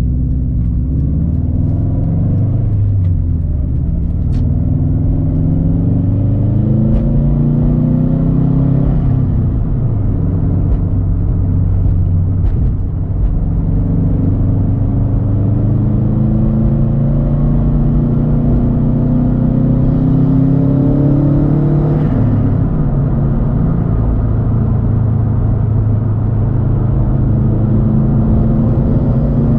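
2013 Subaru WRX STI's turbocharged flat-four engine, heard through a Tomei Expreme Ti titanium exhaust, pulling through the gears while driving: the pitch climbs steadily, then drops at each gear change, several times over.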